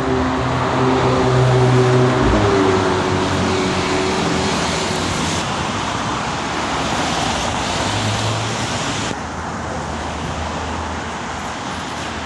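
Road traffic noise: a motor vehicle's engine hum loudest in the first couple of seconds, then a steady rush of traffic.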